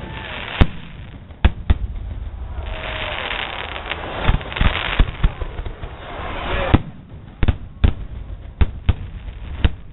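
Fireworks going off: a dozen or more sharp bangs at irregular intervals, with a stretch of dense hissing in the middle.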